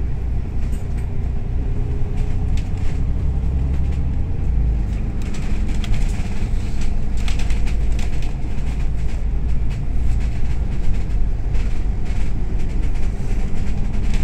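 Cabin noise inside a moving bus: a steady, loud low rumble of engine and tyres on the road, with scattered clicks and rattles from the body and fittings, busiest around the middle.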